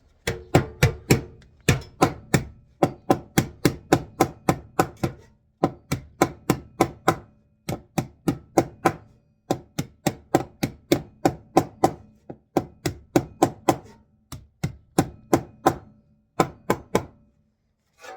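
Hammer striking a sheet of tin, knocking its edge over to fold it down. The blows come in quick runs of several, about four a second, with short pauses between runs.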